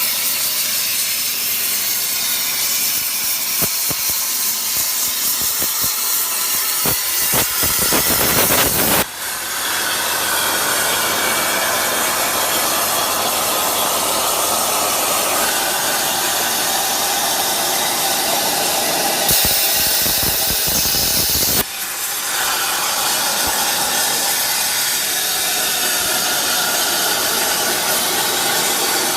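Water-cooled 200 A CNC plasma torch cutting sheet steel: a loud, steady hiss of the plasma arc. It breaks off briefly about nine and twenty-two seconds in, and turns higher and brighter for a couple of seconds just before the second break.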